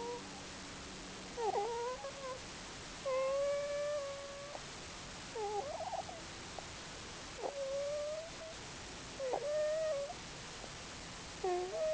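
Snoring made of whistling tones that bend in pitch, one roughly every two seconds, some brief and some held for over a second.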